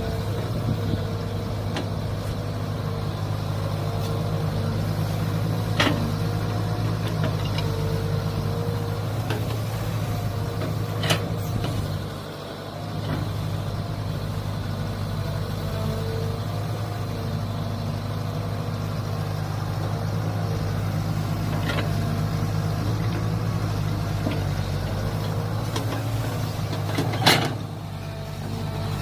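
Mini excavator engine running steadily under work, with a few sharp clanks, the loudest near the end, and a brief dip in engine level about twelve seconds in.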